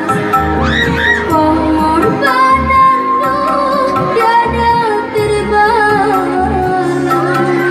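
A young singer's high voice sings a melodious song, holding ornamented, wavering notes over a musical accompaniment with a regular low beat.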